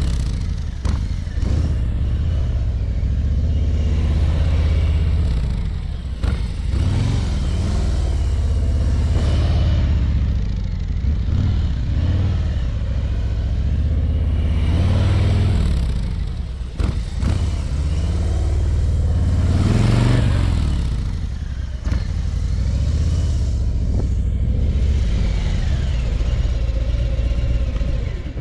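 Harley-Davidson Ultra Limited's V-twin engine running at low, walking-pace speed, with small throttle blips. It swells and fades about every five seconds as the bike turns and passes close by.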